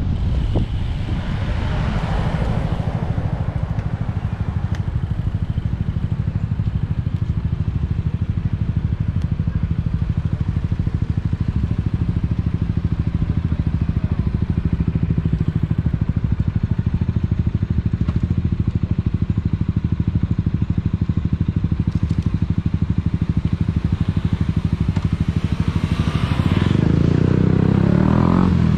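Moped engine idling steadily at close range, revving up near the end as it pulls away.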